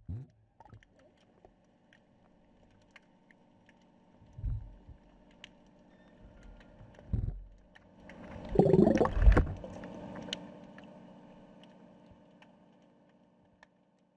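Muffled underwater sound: dull low thumps of water moving against the camera housing, then a louder rushing, bubbling burst lasting about a second near the middle, over a faint steady hum.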